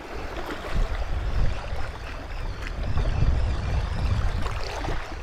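Wind buffeting the microphone in gusts, over the wash of the sea.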